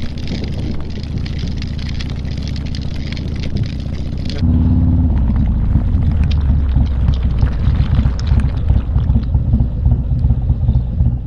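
Harley-Davidson Low Rider ST V-twin running at highway speed with wind and wet-road rush over it; about four seconds in the sound changes abruptly to the engine alone, louder and deeper, as the bike rolls slowly on wet pavement.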